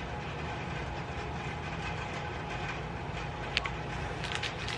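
Steady low background rumble, with a sharp click about three and a half seconds in and a few faint ticks near the end.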